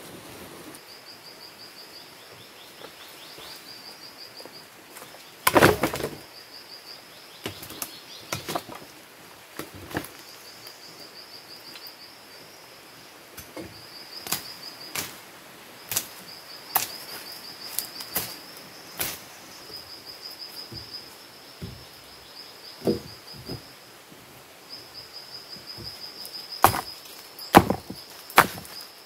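Insects chirping in short high trills, repeated over and over, with scattered sharp knocks and one heavy thump about six seconds in.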